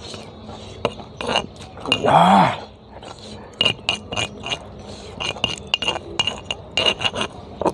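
Pestle striking and grinding in a small mortar: irregular sharp clinks, coming quickly between about three and a half and five seconds in and again near the end. About two seconds in, a man gives one short voiced 'aah' that rises and falls in pitch.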